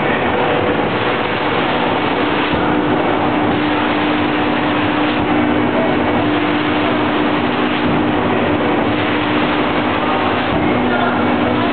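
Angelo Cremona rotary veneer peeling lathe running, spinning a log against its knife as it peels veneer: a loud, steady rushing noise with a steady hum underneath.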